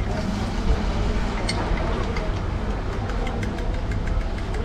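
Steady rumble of road traffic and vehicle engines, with a run of light clicks from about a second and a half in.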